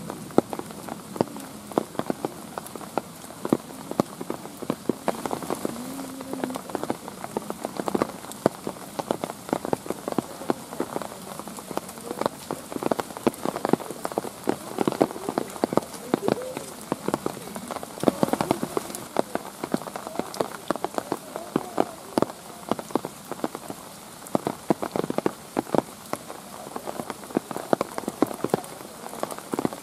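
Steady rain, with dense, irregular drops ticking sharply on hard surfaces close by.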